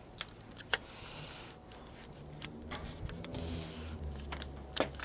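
Hand tools and bicycle parts being handled, giving scattered sharp clicks and clinks, with two short breathy hisses. A low steady hum builds in the second half.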